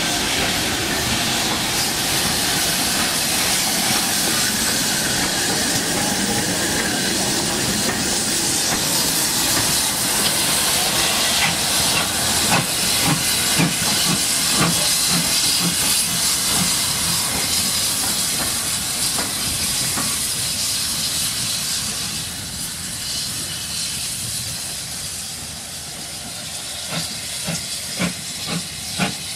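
Steam locomotive hissing loudly, with scattered knocks and clanks. The hiss eases in the last third, and a quicker run of sharp knocks comes near the end.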